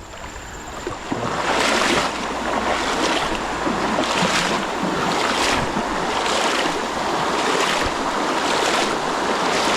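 Water rushing and splashing around legs wading through a rain-swollen creek, with a swish about once a second.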